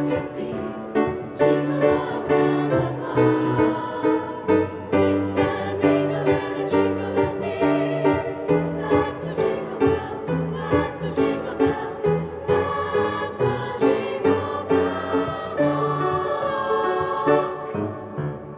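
Mixed high school choir singing with upright piano accompaniment, the voices and piano fading away near the end.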